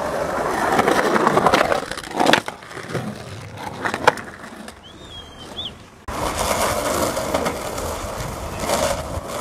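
Skateboard wheels rolling over rough concrete pavement, with sharp clacks of the board hitting the ground about two seconds in and again around four seconds. From about six seconds there is more rolling, and another knock near the end.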